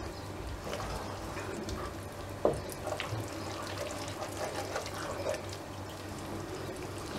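Wooden spoon stirring a thick, wet flour-and-milk dough in a frying pan over low heat: soft wet squelching, with a light click of the spoon against the pan about two and a half seconds in.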